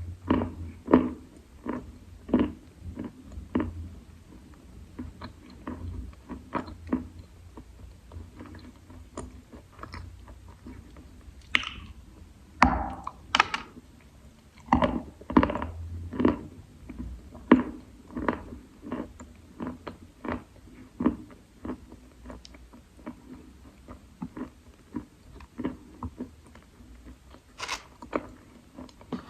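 Damp Khrapovsky chalk being bitten and chewed: a steady run of short crunches, with a few louder bites.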